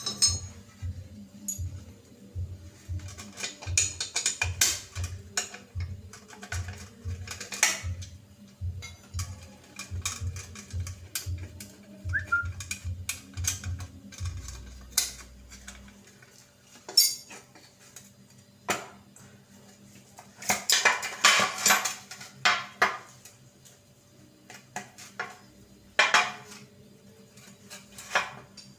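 Metal tools and washing-machine gearbox parts clinking and knocking against each other in scattered strikes, with a busy run of clatter about two-thirds of the way in. A low, regular music beat plays under the first half and stops about halfway through.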